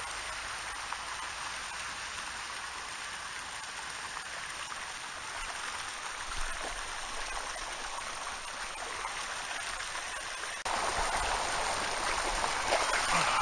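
Steady rushing of flowing water, which turns abruptly louder about eleven seconds in.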